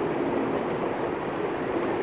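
Steady mechanical drone: a constant hum over an even rumble, with no breaks or sudden events.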